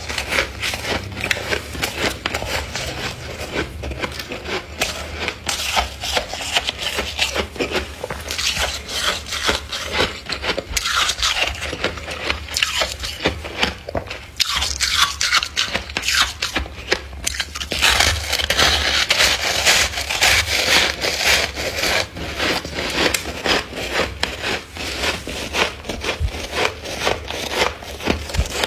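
Thick, fluffy freezer frost being scraped: a continuous crunchy, crackling scratching that gets busier from about two-thirds of the way in, over a steady low hum.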